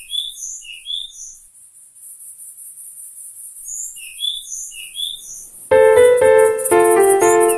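Music: a high, steady shimmering hiss with small groups of short chirping blips, then about six seconds in, keyboard chords start up in a repeated rhythm.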